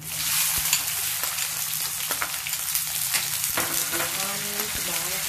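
Chopped onions dropped into hot groundnut oil with tempering spices, sizzling loudly the moment they go in and then frying steadily with many small crackles while a ladle stirs them.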